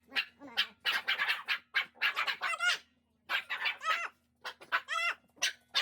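A dog whining and whimpering in a string of short, high-pitched calls, most falling in pitch, with brief pauses between them.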